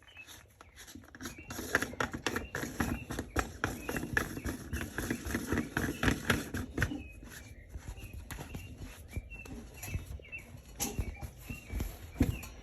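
Handling noises: irregular rustling, clicks and knocks of the tarpaulin and the plastic tank connector as its back nut is tightened by hand. The noise is busiest in the first half.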